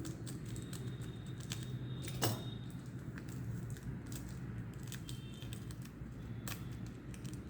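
Scattered light clicks and taps of hands handling a roll of tape and scissors, with a sharper click about two seconds in and another near the end, over a low steady hum.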